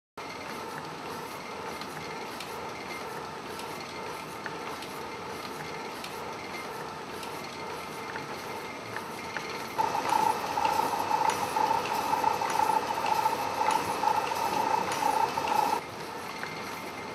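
Steady mechanical whir and hiss of the Boston Dynamics PETMAN humanoid robot walking on a treadmill, with faint regular ticks. A louder steady whine joins about ten seconds in and cuts off sharply some six seconds later.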